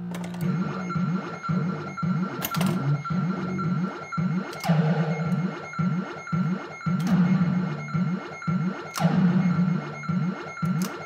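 Bally Flash Gordon pinball machine's electronic background sound, played through a replacement Squawk & Talk sound board: a pulsing run of short rising tones over a steady high note that carries on unbroken. Sudden noisy hits cut in on top of it about every two seconds without stopping the background.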